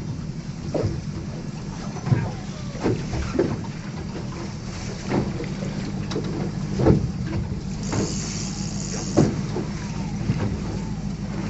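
Boat engine idling steadily, with a string of short knocks and a brief hiss about eight seconds in.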